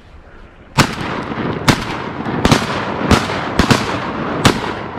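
Shotgun volley: about seven sharp shots over roughly four seconds, two of them almost together, so more than one gun is firing. Each report rings on into the next.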